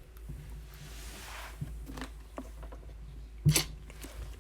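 Low steady hum with a few soft scattered clicks and one sharper click about three and a half seconds in.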